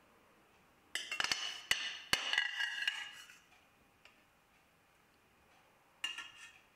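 A metal spoon clinks and scrapes against a stainless steel pan and a glass bowl while scooping bolognese sauce. There are several sharp clinks in a burst lasting about two seconds, starting about a second in, and a shorter scrape near the end.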